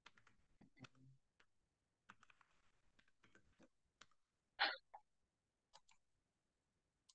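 Faint, scattered clicks of a computer keyboard being typed on, with one louder short noise about four and a half seconds in.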